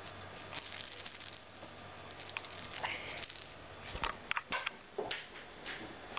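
Rustling and scattered small clicks from a phone camera being handled over bedding, with a quick cluster of sharp knocks about four to five seconds in as the camera is swung around.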